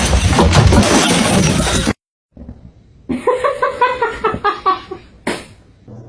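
A loud, dense crashing noise for about two seconds that cuts off abruptly, then, after a short silence, a quieter pitched sound in a series of short wavering notes.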